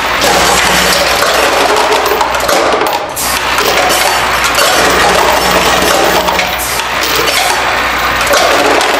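Brass fittings rattling and clinking without pause as they travel around the feed bowl of a Delta Counter LCM22 piece-counting machine, over a steady low machine hum.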